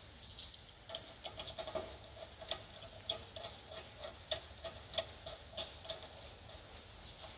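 Small metallic clicks, about two a second, as the T30 Torx brake disc retaining screw is wound in by hand with a screwdriver.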